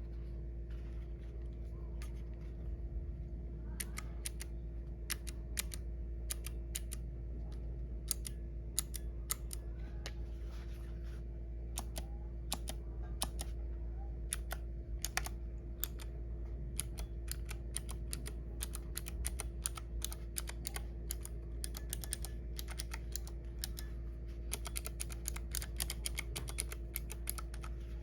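Typing on a Keychron K3 mechanical keyboard with clicky blue switches: irregular keystroke clicks, sparse at first, coming in a fast run near the end.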